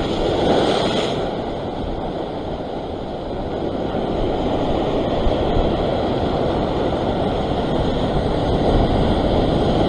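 Sea waves surging and breaking against a rock ledge, a steady rush of white water, with wind buffeting the microphone.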